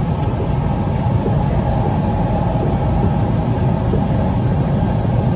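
Washington Metro subway train running at speed, heard from inside the passenger car: a steady low rumble of the car rolling on the rails.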